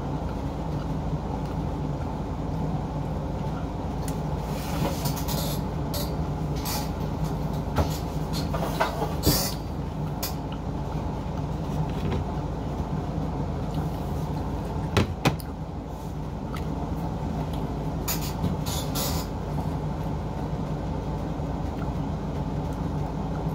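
A steady low machine hum, with scattered short crisp crackles and rustles of lettuce leaves being chewed and handled. The sharpest is a pair of clicks about two-thirds of the way through.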